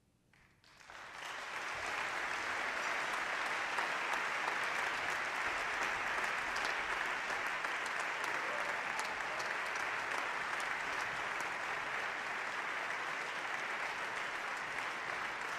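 Audience applauding: after a brief hush, the clapping starts about a second in, swells quickly and then holds steady.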